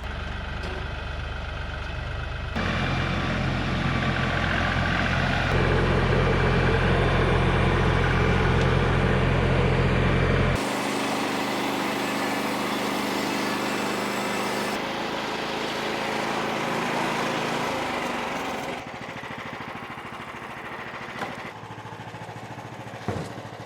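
A Frontier OS27 portable bandsaw mill running, its small engine humming steadily. It is loudest for the first ten seconds or so, then quieter, with the sound changing suddenly several times.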